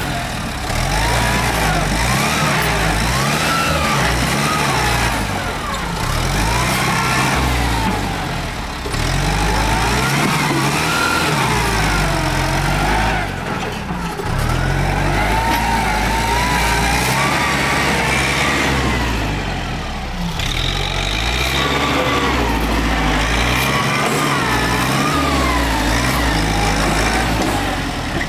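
Kubota tractor's diesel engine running under load, its pitch rising and falling again and again as it works the ground.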